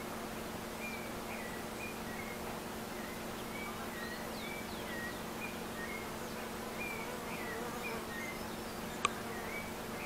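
A steady low buzzing hum, with small birds giving short chirping calls throughout and a single sharp click about nine seconds in.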